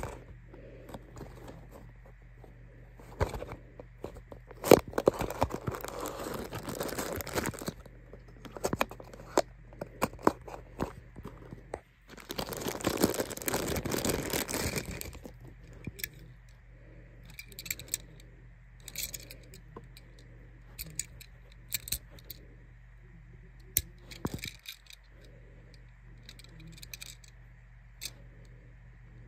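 Unboxing a die-cast toy car by hand: a small cardboard box being opened and a thin plastic wrapping bag crinkling in two long stretches, about five seconds in and again from about twelve to fifteen seconds. Between and after them come short clicks and taps of the box and the small metal car being handled.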